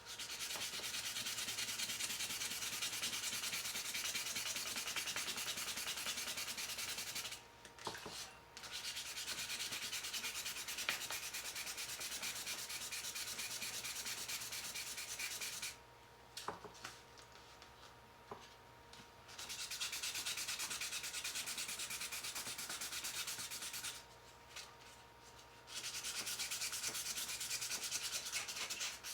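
Wet 320-grit wet-and-dry sandpaper rubbing back and forth over a Swiss Army knife's cellidor plastic scale, a dense scratchy hiss, to sand off a printed logo. It comes in four spells of several seconds, with short pauses between them.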